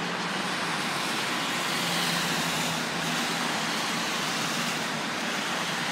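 Steady highway traffic noise, the tyre and engine rush of passing vehicles, swelling slightly about two seconds in.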